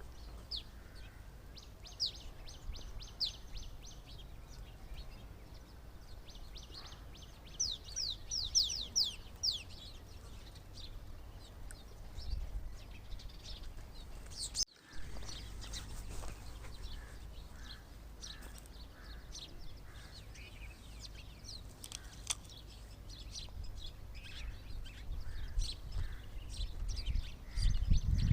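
Small birds chirping and twittering, with two quick runs of high, down-slurred notes in the first ten seconds. The sound drops out for an instant about halfway, and a low rumble rises near the end.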